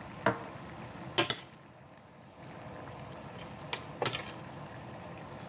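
Red curry simmering in a stainless steel pan with a steady soft bubbling hiss, broken by a few sharp clicks of a utensil against the metal pan as the curry is stirred.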